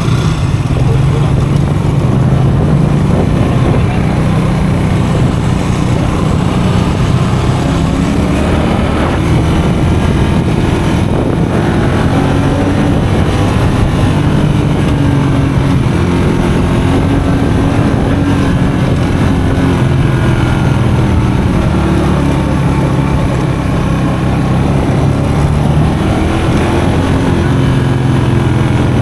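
Custom motorcycle engine running steadily while riding on a dirt road, its pitch rising and falling a little with the throttle, over a constant rush of noise.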